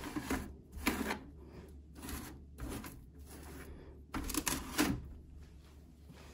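A metal spoon scraping and pressing damp Excavator clay through wire mesh: a series of short scrapes roughly once a second, two close together about four seconds in, then fainter.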